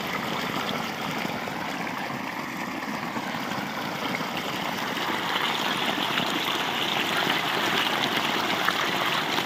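Irrigation water gushing steadily from a wide outlet pipe and splashing onto the ground as a field is flooded. It grows a little louder about halfway through.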